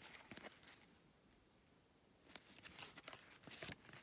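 Faint rustling and crinkling of a cardboard hang tag and paper care label handled between the fingers: a few short scratchy rustles just after the start, a quiet gap, then a cluster more in the second half.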